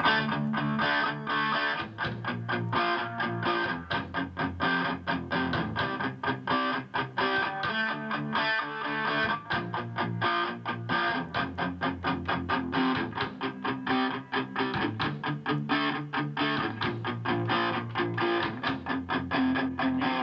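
A band playing a song in the studio: electric guitar over a drum kit keeping a steady beat, kicking in right after a count-in.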